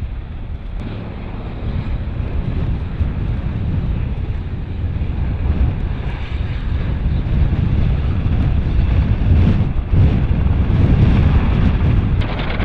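Low-flying military helicopter rotor noise: a heavy, steady rotor thump that grows louder toward the end as a UH-60 Black Hawk passes close, with wind rumbling on the microphone.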